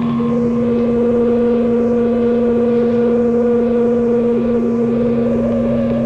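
Noise-rock recording played from a cassette: a distorted, steady drone holding a low note, with a second note an octave higher, over a rough buzzing rumble.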